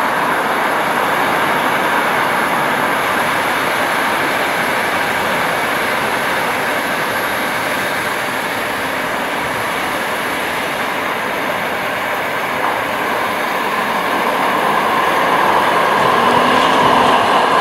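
Light-rail tram running along a roadside track toward the listener, a steady rail-running noise mixed with road traffic, growing louder over the last few seconds as it nears.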